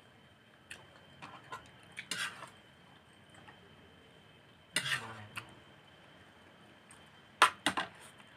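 Scattered clinks and knocks of a serving spoon against dishes and plates during a meal, the loudest about five seconds in and two more near the end.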